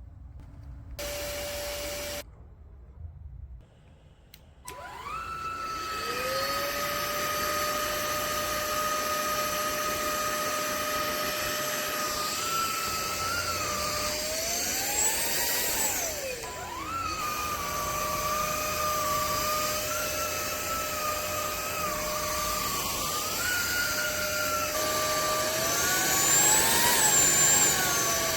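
Cordless stick vacuum motor is switched on for about a second, then started again and spins up to a steady high whine. The pitch swells up and drops back twice, about halfway through and near the end.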